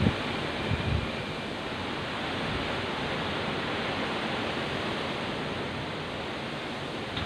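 Heavy rain and strong wind, a steady rushing noise, with low wind buffets on the microphone in the first second.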